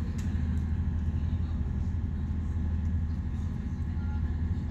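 Steady low drone of a boat's engine with the hull running through the water, heard from inside the cabin.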